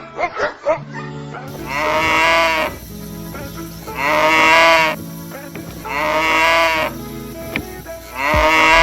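Cattle mooing: four long, drawn-out calls about two seconds apart, each lasting about a second. A few short, quick yips sound in the first second.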